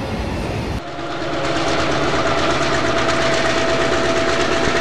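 Model train rolling past close by, a boxcar and then a diesel switcher locomotive: the wheels click rapidly and evenly over the rail joints, with a steady whine over them.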